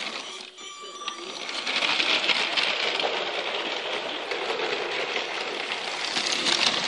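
Lego City high-speed passenger train (60051) running on plastic Lego track: a steady clattering rattle of its wheels and motor, which gets louder about a second and a half in and then holds steady.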